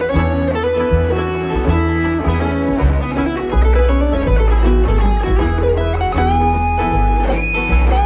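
Live bluegrass band playing an instrumental passage: acoustic guitars and banjo picking over a steady run of upright bass notes, with a held, sliding melody line on top.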